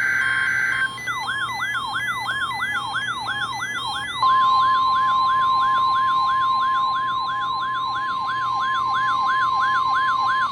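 NOAA Weather Radio weekly test alert: the tail of the SAME header's warbling data tones, then an electronic siren-like alarm sweeping up and down about three times a second. About four seconds in, the steady 1050 Hz weather radio warning tone joins it and holds.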